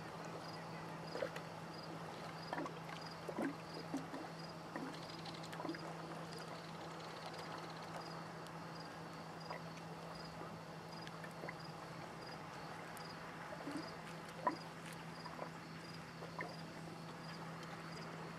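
Small waves lapping and plopping at the lake edge, with a faint steady low hum underneath. A high insect chirp repeats about twice a second.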